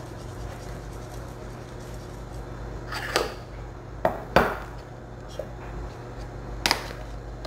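Spice containers knocking on a stone countertop as they are set down and picked up: a sharp knock about three seconds in, two more close together about a second later (the loudest), and one more near the end. A steady low hum runs underneath.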